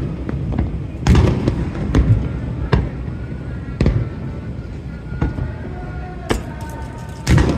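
Aerial fireworks display: about half a dozen shell bursts booming at irregular intervals over a continuous low rumble, the loudest bang near the end.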